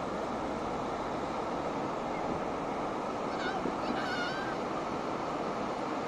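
Steady wash of sea surf breaking on a beach, with faint high shouts about three and a half to four and a half seconds in.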